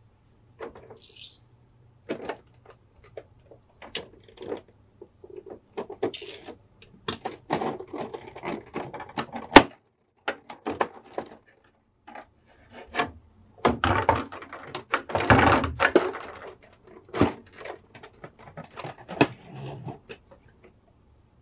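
A clear plastic blister tray is being handled and pulled apart, giving crinkling, creaking and tapping of thin plastic with two longer bouts of crinkling. A sharp snap comes a little before halfway through and is the loudest moment.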